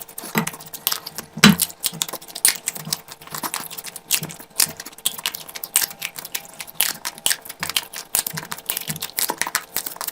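Close-miked eating: wet mouth clicks, smacks and crunches from chewing, coming several times a second with soft low thumps among them, the loudest about one and a half seconds in.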